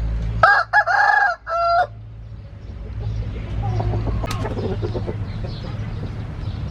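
A rooster crows once, about half a second in, in a loud call of about a second and a half broken into three parts. After that a steady low hum and faint background noise remain.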